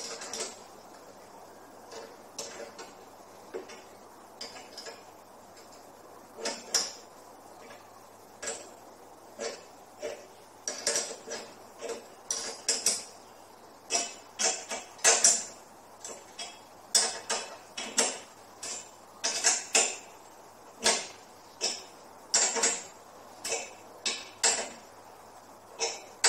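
Short metallic clinks and rattles of bolts, fittings and tools being worked on a lawn mower's handle bracket while the handle is fastened on. A few scattered ones at first, then quick runs about once a second from about ten seconds in.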